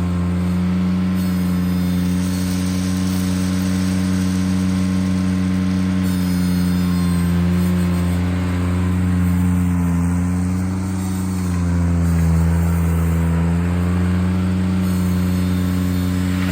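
Ventrac compact tractor's engine running steadily. Its pitch dips briefly near the middle and comes back up.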